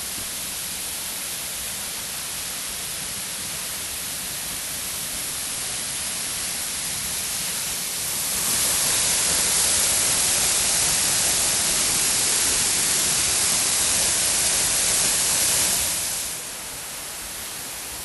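Waterfall rushing: a steady hiss of falling water, noticeably louder for about eight seconds in the middle, then dropping back.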